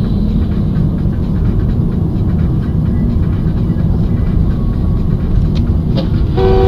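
Steady low rumble of a car's engine and tyres, heard from inside the cabin through a dashcam microphone. Near the end a car horn sounds briefly.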